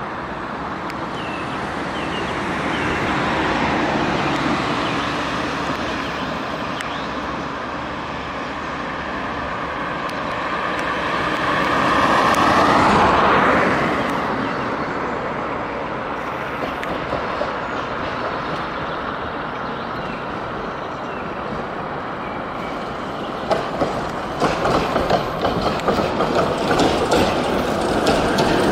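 Street traffic running steadily, with a road vehicle passing close about halfway through with a rising whine. Near the end a Tatra T6B5 tram draws up and passes close, its wheels clacking and knocking over the rail joints.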